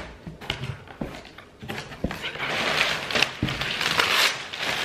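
Cardboard shipping box being unpacked: scissors cutting packing tape at the start, then crumpled brown kraft packing paper and bubble wrap rustling and crinkling as a wrapped item is pulled out, with sharp little clicks and crackles.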